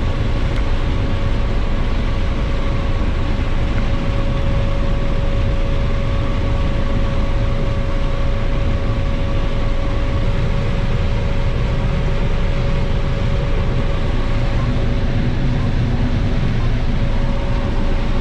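Combine harvester running steadily while picking corn: a deep constant rumble with a steady whine over it.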